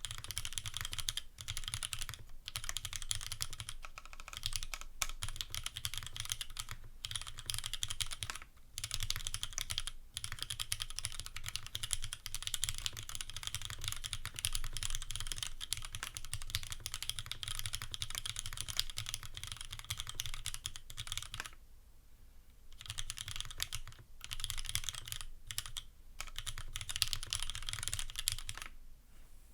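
Steady, fast typing on a custom Glare TKL mechanical keyboard, top-mounted with an aluminium plate, fitted with lubed Cherry retooled Black linear switches and GMK keycaps: keystrokes in quick succession with short breaks, and a longer pause about 22 seconds in.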